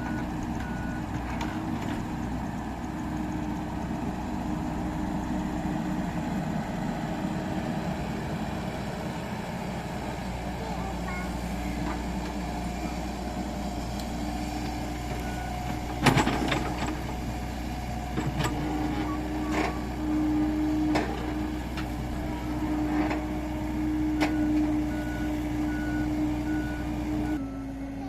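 Heavy diesel machinery running steadily, with a heavy vehicle's reversing alarm beeping briefly near the start and again near the end. A loud sharp knock comes about sixteen seconds in, followed by several more knocks.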